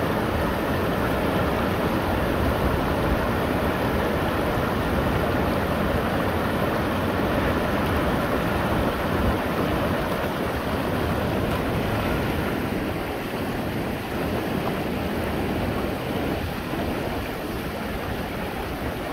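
Rushing water of a shallow river running over rocks, a steady noise that eases slightly in the last third.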